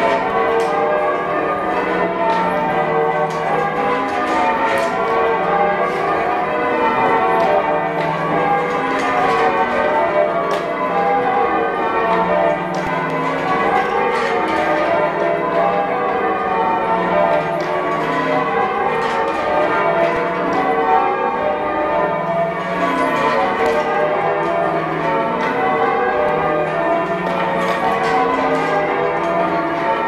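Change ringing on a heavy ring of church bells, mostly cast by Thomas Rudhall in 1773 with a tenor of about 21 cwt in D, heard from the ringing chamber below the bells. The bells strike one after another in an unbroken stream of changing rows. These bells are known as oddstruck, which makes them hard to strike evenly.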